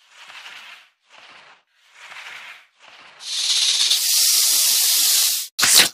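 Cobra hissing: three short, soft hisses, then a loud, long hiss from about three seconds in, and one short sharp hiss just before the end, a snake's threat hiss.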